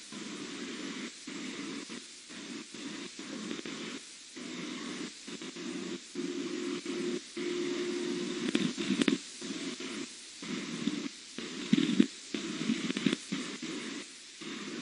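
Steady hiss and static from an outdoor osprey nest-cam's audio feed, cutting out briefly many times over. A couple of short, louder scratchy noises come about nine and twelve seconds in.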